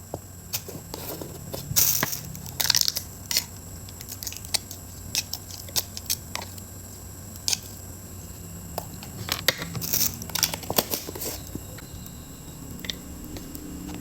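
Close-up crunching and crinkling from crunchy food being eaten, in irregular crackling bursts, busiest about two seconds in and again around ten seconds in.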